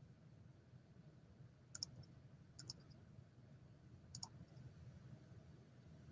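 Near silence: faint room tone with a low hum and three faint short clicks, about two, two and a half and four seconds in.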